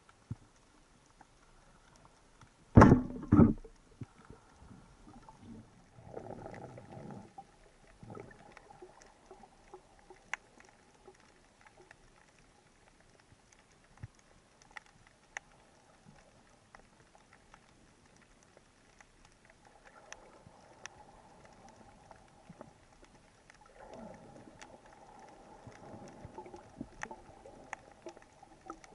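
Underwater sound heard through a diving camera's housing: scattered sharp clicks and crackles, a loud double thump about three seconds in, and stretches of low rushing noise around six seconds and again in the last few seconds.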